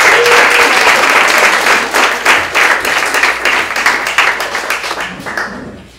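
Audience applauding, loud at first and dying away near the end.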